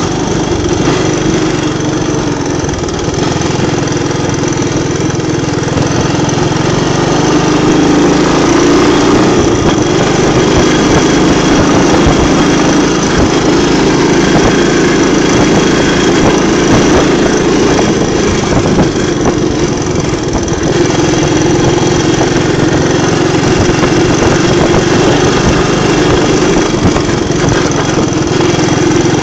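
Three-wheeler ATV engine running steadily while riding, a little louder from about seven seconds in.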